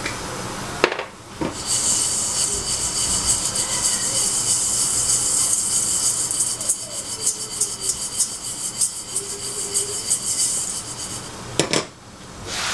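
Dry Israeli couscous pearls rattling and swishing in a stainless steel saucepan as the pan is shaken over a gas burner to toast them. The rustle is steady, from about two seconds in until near the end, with a couple of knocks of the pan on the grate at the start and near the end.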